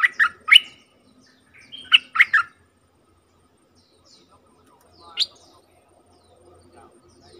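Caged decoy bulbul singing in short phrases of bright, rising chirps: a quick run of notes at the start, another phrase about two seconds in, and one single call about five seconds in.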